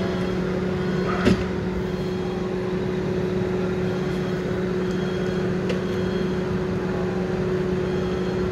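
Steady low hum of idling fire-truck engines, with faint wailing sirens of more emergency vehicles in the distance. One sharp knock about a second in.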